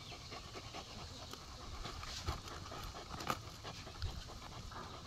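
Dog panting hard from digging, quick short breaths, with a few sharp scrapes as it paws at the soil of the burrow.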